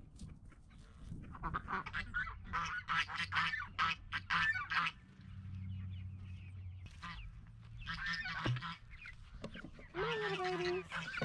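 Domestic geese honking in a run of short calls, with ducks quacking among them, and one longer honk with a slightly falling pitch near the end.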